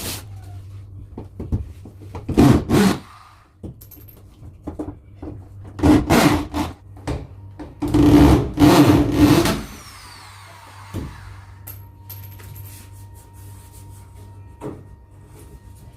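Handheld electric drill running in three short bursts against a wooden partition, with knocks and scrapes of wood between the bursts. After the last burst the drill's whine falls as it spins down.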